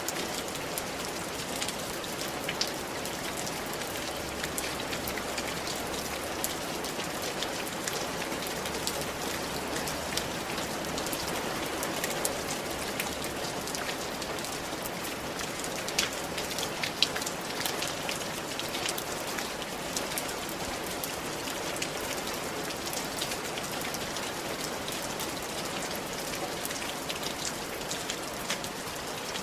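Steady rain falling on a tiled roof, a continuous patter with many sharp drop ticks scattered through it.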